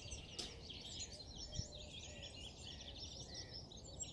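Faint twittering of small songbirds, many quick high chirps overlapping, over a low steady rumble.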